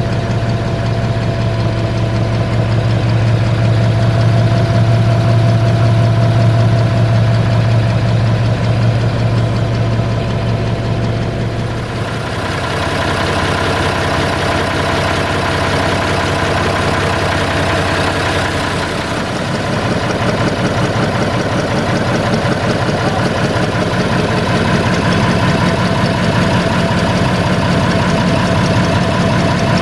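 SAME Laser 110 tractor's diesel engine idling steadily, still warming up after a cold start in frost. It is first heard from inside the cab as a deep drone, then from about twelve seconds in from outside beside the engine, with more clatter and less drone.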